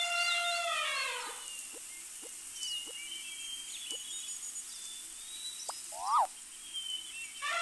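Elephant trumpeting: one long call that falls in pitch as it fades, about a second long, with bird chirps and a few soft clicks after it. About six seconds in comes a quick pair of sharp rising-and-falling squeals, and another trumpet call begins right at the end.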